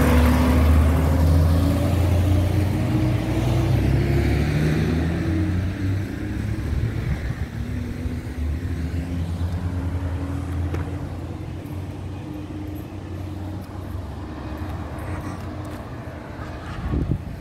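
Daewoo city bus's diesel engine pulling away, its pitch rising as it accelerates, then fading as the bus drives off.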